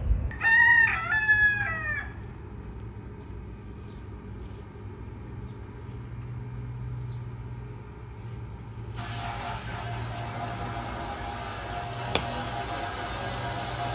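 A rooster crows once, a single call lasting under two seconds. Under it a steady low engine hum runs throughout. About nine seconds in, a louder rushing hiss joins the hum, and there is one sharp click near the end.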